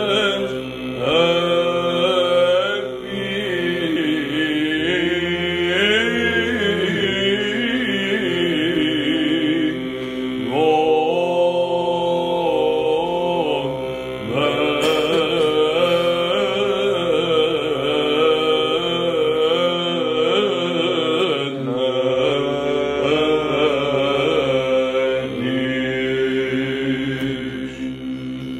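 Byzantine chant in the first tone: a monk's solo voice sings a slow, ornamented melody over a steady held drone note.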